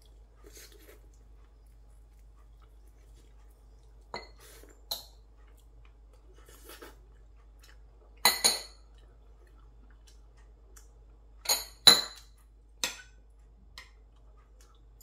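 Chopsticks and a spoon clinking against bowls and a serving plate while eating, in scattered sharp clinks, the loudest a pair about eight seconds in and another pair about twelve seconds in.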